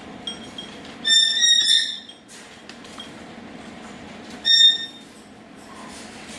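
Baby caique parrots calling with short, high-pitched squeaky notes: a run of several about a second in, and one more call a few seconds later.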